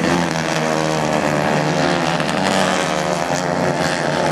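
Several racing kart engines running hard together as karts race close by, a dense steady buzz of overlapping engine pitches that waver slightly as they rev.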